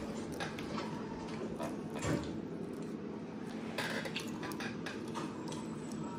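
Light clatter and rustling of handling cardboard cut-outs and a plastic tub, scattered small knocks with a slightly louder one about two seconds in, over a steady low hum.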